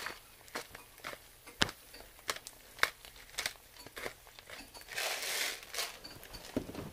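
Fried egg crackling in hot oil in a frying pan: scattered sharp pops and spits at uneven intervals. A short grainy rustle comes about five seconds in.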